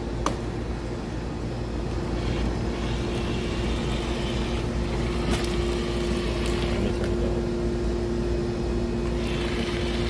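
Amphibious RC stunt car with paddle wheels churning through pool water, splashing in spurts. Under it runs a steady low hum.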